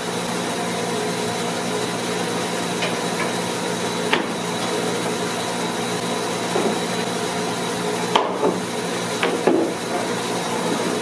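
Steady hiss and hum of workshop machinery running, with a few sharp wooden knocks as the cut bamboo butcher-block pieces are handled on the CNC router table, the loudest cluster about eight to nine and a half seconds in.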